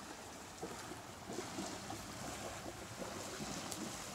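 Faint shoreline ambience: small waves lapping on a slate shingle beach, with a soft hiss that picks up about a second in.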